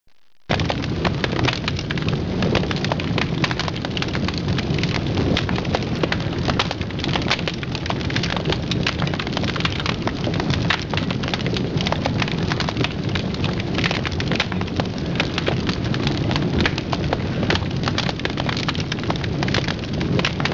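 Paella sizzling and crackling in its pan over a wood fire: a loud, dense, steady sizzle full of sharp crackles that stops suddenly at the end.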